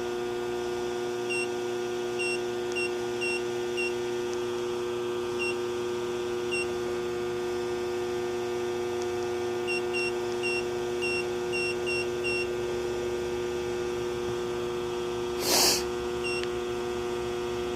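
Short, high key-press beeps from the Svecia SMD screen-printing press's Clear Control 2000 control panel, in two runs, as the squeegee and flood speed settings are stepped up toward 75%. They sound over a steady electrical hum, and there is one short hiss near the end.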